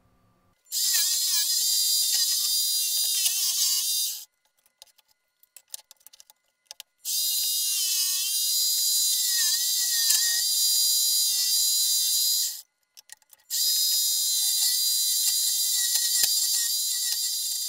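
Table-mounted jigsaw cutting plywood, run in three bursts of several seconds with short pauses between, its high whine wavering in pitch as the blade takes the cut. Small clicks and knocks of the wood being handled in the pauses.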